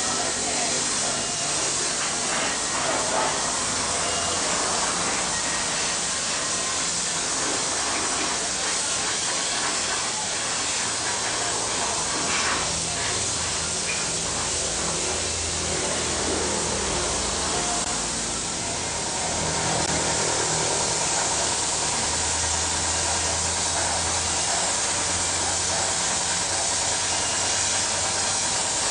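Compressed-air siphon-feed paint spray gun hissing steadily as it sprays paint onto a steel chassis frame, with a brief lull about two-thirds through. A low hum comes and goes underneath.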